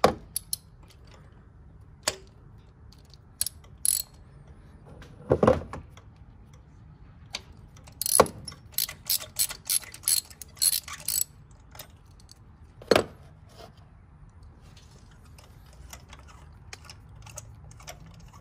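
Hand ratchet on a spark plug socket and extensions clicking in short runs, with metal clinks and knocks from the tools, while old spark plugs are being loosened. A quick string of clicks comes a little before the middle, with separate louder knocks before and after it.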